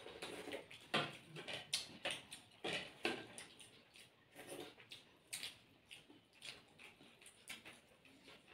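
Close eating sounds of rice and chicken stew eaten by hand: wet chewing and mouth smacks with fingers working food on the plates, heard as a string of short, irregular clicks, a few each second.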